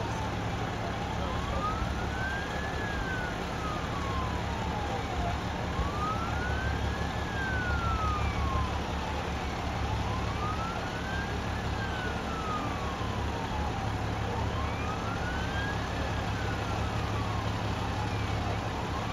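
Emergency vehicle siren on a slow wail, rising quickly and falling more slowly, about once every four and a half seconds, over a steady low engine and traffic rumble.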